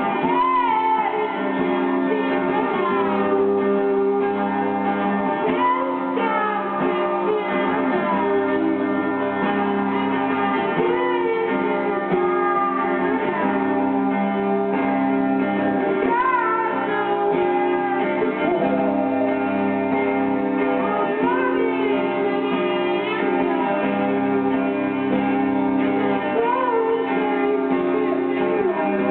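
Live band playing a droning song, led by electric guitar: sustained chords ring steadily underneath while wavering, sliding higher notes come and go over them.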